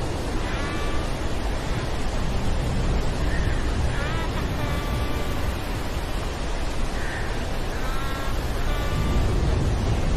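Storm sound-effect ambience: a steady, deep rumbling noise like wind and surf, with a few short high calls in clusters about a second in, around four seconds and around eight seconds.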